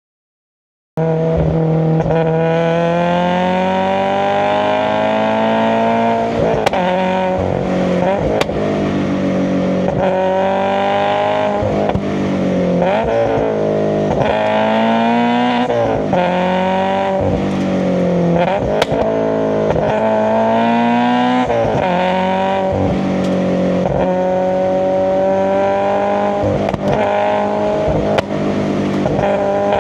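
Subaru BRZ's FA20 flat-four breathing through SARD individual throttle bodies, driven hard: the engine and intake note climbs in pitch under acceleration and drops back at each shift or lift, over and over. It comes in about a second in.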